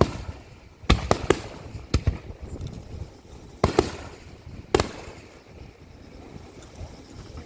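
Aerial firework shells bursting in a string of sharp bangs, some in quick clusters, each trailing a low rumble. The bangs thin out after about five seconds.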